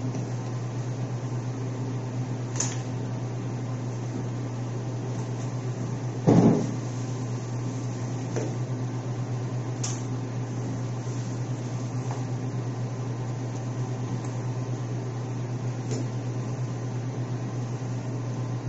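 Steady low machinery hum, with a few faint clicks and one louder thud about six seconds in.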